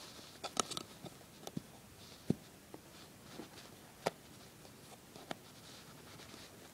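Fingers weaving loops over and under on a potholder loom: faint rustling of the loops with scattered small clicks and taps, the sharpest about half a second, two seconds and four seconds in.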